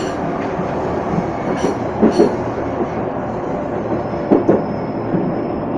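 Tatra T3 tram running, heard from inside the passenger cabin: a steady rolling rumble of wheels on the rails, broken by two pairs of knocks about two and four seconds in, typical of wheels crossing rail joints. A faint thin high whine sounds for a second or so near the end.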